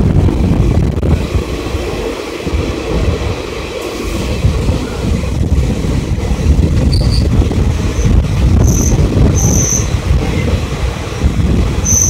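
Deccan Queen express passenger coach running at speed, its wheels rumbling steadily on the rails, with a few short, high-pitched wheel squeals in the second half.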